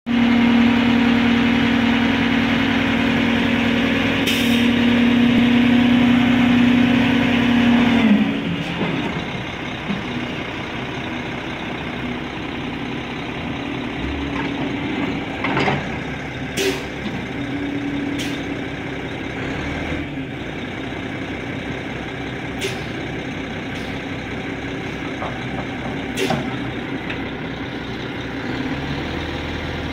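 Mack R-model roll-off truck's diesel engine running at raised revs to work the hydraulic hoist, with a strong steady tone, then dropping back to idle about eight seconds in. Over the idle come a few short, sharp clanks or hisses.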